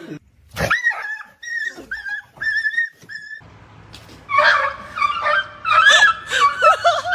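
Dog whimpering: about five short, high whines, then a louder run of overlapping whines and yelps in the second half.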